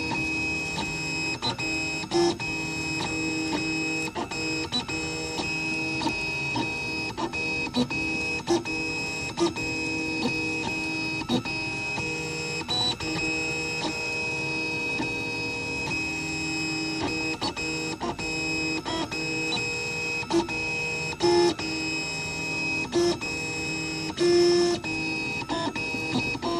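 3D printer running, its stepper motors whining at several steady pitches, broken by frequent brief clicks and a few louder bursts.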